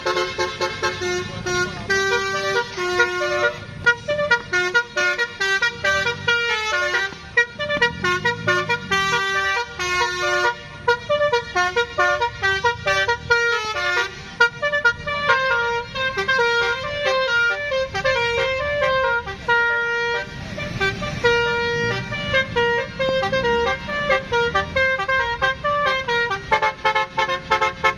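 A bus's telolet horn, a multi-tone musical air horn, playing quick runs of short notes that change pitch in steps, with the engine running beneath.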